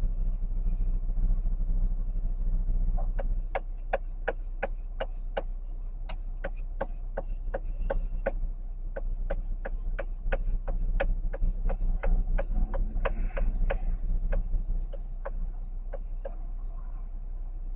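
Inside a car: steady engine and road hum, with a turn-signal indicator ticking about three times a second from about three seconds in until near the end.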